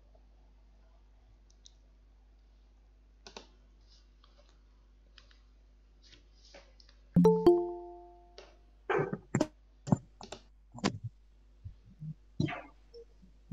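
Scattered faint clicks, then an electronic two-tone chime about seven seconds in that dies away within a second, followed by a run of sharp clicks and knocks from a computer keyboard and mouse.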